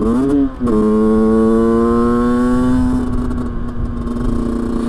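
Rieju 50cc two-stroke moped engine under way: the revs climb sharply, drop briefly about half a second in, then hold high and rise slowly before levelling off. The carburettor has just been rejetted to a 120 main jet.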